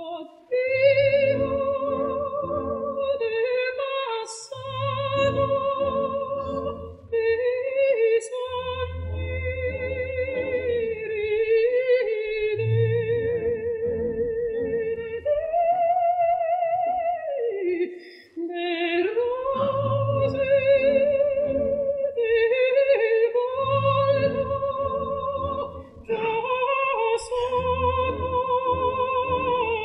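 Operatic soprano singing long, sustained phrases with a wide vibrato, with short breaths between phrases. Under the voice, soft orchestral chords pulse in a steady rhythm.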